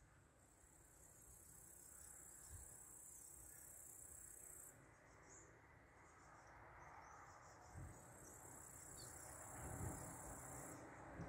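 Faint high-pitched insect trilling, typical of crickets in summer grass, in two long stretches of about four seconds with a short break between. Under it is a low wind rumble that grows stronger near the end.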